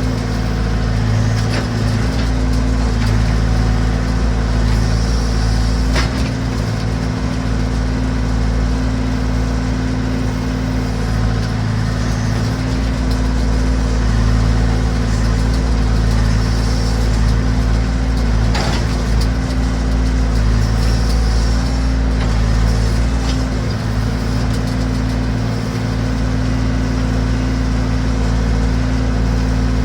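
Massey Ferguson backhoe's engine running steadily, with a couple of sharp knocks, about six seconds in and again near nineteen seconds.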